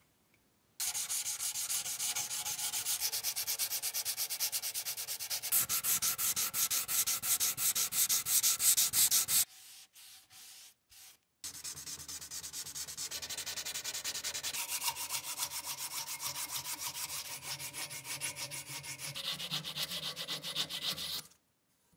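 Hand-rubbing and sanding on the steel blade of an old meat cleaver, in quick, even back-and-forth strokes. There are two long runs with a short break between them; the later strokes are sandpaper drawn along the edge to take off its sharpness.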